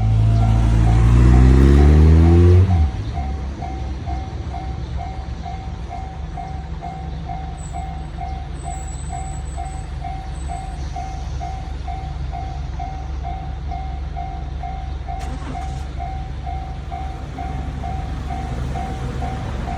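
Japanese level-crossing warning bell ringing steadily, about two strikes a second. In the first few seconds a train accelerates past, its pitch rising, then the train sound cuts off abruptly, and near the end a rising engine tone begins again.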